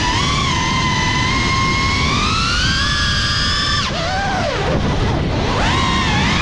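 GEPRC FPV quadcopter's brushless motors whining, the pitch rising and falling with the throttle. The whine drops sharply about four seconds in as the throttle is chopped, then climbs back up near the end, over a low rush of wind.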